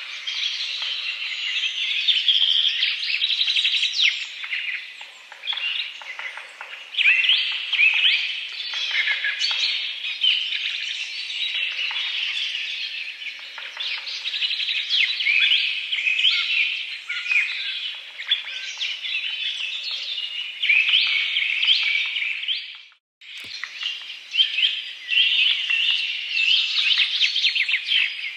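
A dense chorus of many small birds chirping and twittering together, with one brief break to silence late on.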